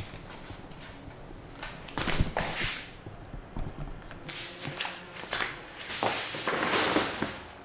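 Fabric of a collapsible laundry sorter bag rustling and flapping in bursts as it is pulled open and stood upright, with a sharp knock about two seconds in and a few footsteps.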